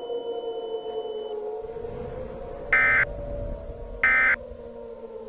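Emergency Alert System end-of-message data bursts: two short, harsh buzzing bursts about a second and a half apart, marking the end of the alert, over a low, slowly wavering tone.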